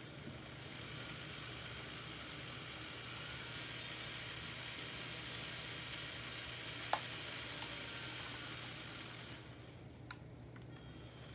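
Jet engine sound from a LEGO jet engine model: a high hiss that swells about a second in, grows louder, then drops away suddenly near the end, with a single click about two-thirds of the way through.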